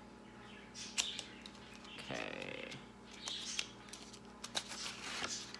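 Eyeshadow palette's pink cardboard packaging being handled and opened by hand: soft rustling and scraping with a few small clicks.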